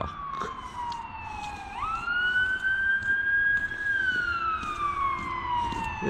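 Fire ladder truck's siren wailing, its pitch sliding slowly down, jumping back up quickly about two seconds in, climbing slowly, then falling again near the end.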